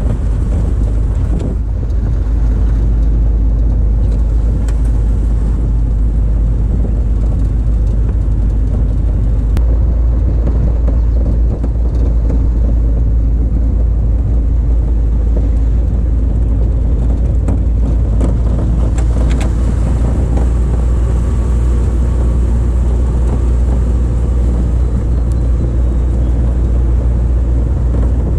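A vehicle engine running steadily with tyre noise as it drives along a snowy gravel track: a constant low drone, with a few brief knocks from bumps along the way.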